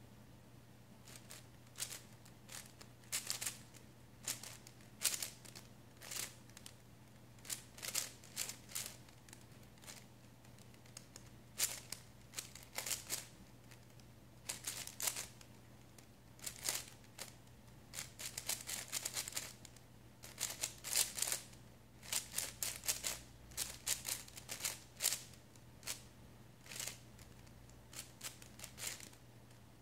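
MoYu Cubing Classroom MF5 5x5 speed cube being turned fast during a solve: irregular runs of quick plastic clicking and clacking as the layers snap round, broken by short pauses.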